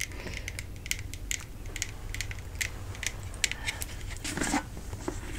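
Scattered light clicks and taps, irregular and a fraction of a second apart, with a short rustle about four seconds in.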